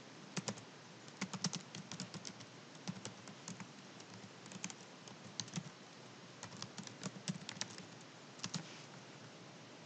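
Typing on a computer keyboard: a run of irregular keystrokes in quick clusters with short pauses, stopping shortly before the end.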